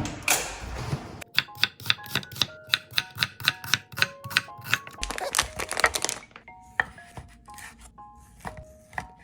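Knife chopping on a cutting board, a quick even run of about four to five strokes a second, over background music. A short rustling noise comes just before the chopping starts.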